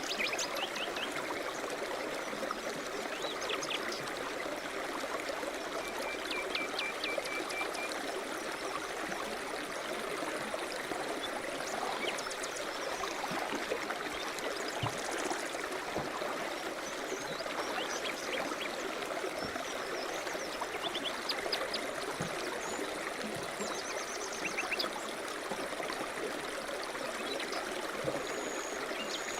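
River rapids running steadily, with birds calling faintly and intermittently over the rush of water.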